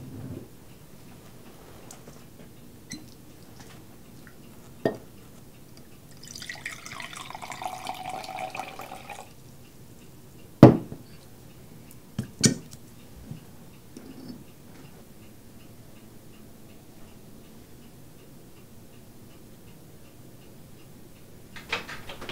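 Drink poured from a glass carafe into a stemmed glass for about three seconds, followed by a sharp clink of glass set down on a wooden table and a second, softer knock about two seconds later. A few light glass taps come before the pour.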